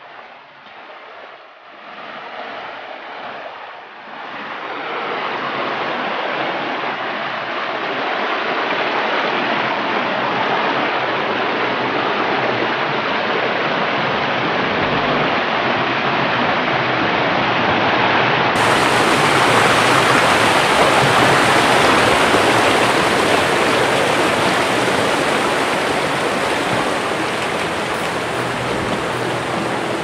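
Rocky rainforest stream rushing and splashing over boulders: a steady, loud hiss of running water that swells over the first few seconds and then holds.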